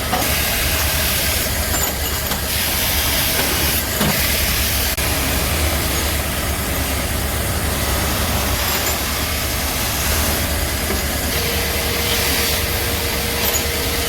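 A steady, loud machine noise: a strong hiss over a low hum, running on without a break. A faint steady whine joins in near the end.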